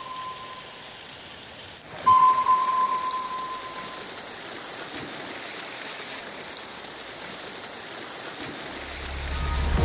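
River water rushing in a steady wash. About two seconds in, a single clear ringing tone sounds and fades away over about two seconds, and near the end a low bass hum swells in.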